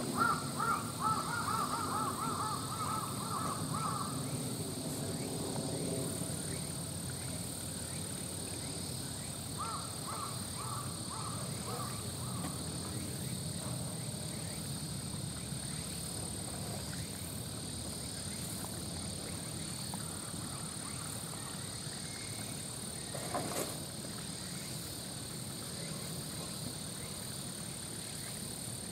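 A bird calling in runs of short, evenly spaced, repeated calls: about eight in the first four seconds and about five more some ten seconds in. A single sharp knock comes about 23 seconds in.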